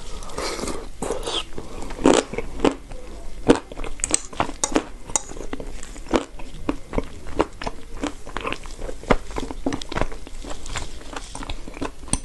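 A person chewing and crunching chalk: an irregular run of sharp crunches, a few a second.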